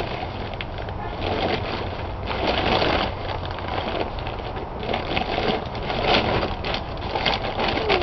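Gloved hands digging through the soil of a potato-filled feed bag: irregular bursts of rustling and crunching as the soil is scraped and the bag material is handled and crumpled.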